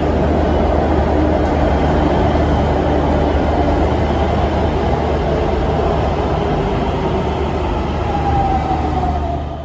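Pune Metro electric train pulling into a station, a steady rolling rumble of wheels on rail with a low hum, and near the end a whine that falls in pitch as the train slows.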